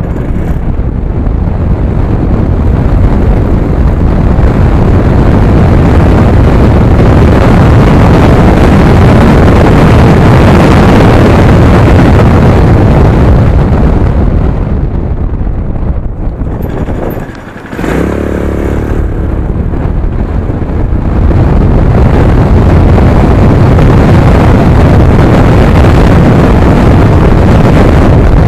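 Honda Fusion scooter on the move: engine and road noise buried under heavy wind buffeting on the microphone. It dips briefly about seventeen seconds in, then builds up again.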